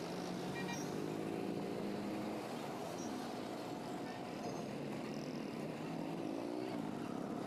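Vehicle engine running on the road over steady road noise, its pitch sliding up and down a few times as the speed changes.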